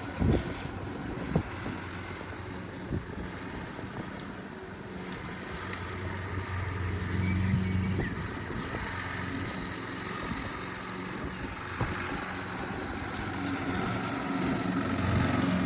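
Small petrol lawn mower engine running steadily, revived after its carburettor was cleaned, with its note swelling about seven seconds in and again near the end. A couple of sharp knocks come in the first second or so.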